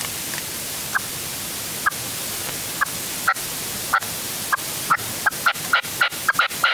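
Male red-legged partridge decoy calling in short clipped notes that speed up from about one a second to about four a second, over a steady background hiss.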